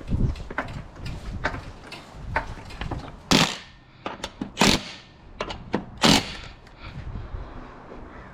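Hand tools and metal parts at work while a UTV wheel is fitted back on: a run of small clicks and taps, with three louder metallic knocks about a second and a half apart.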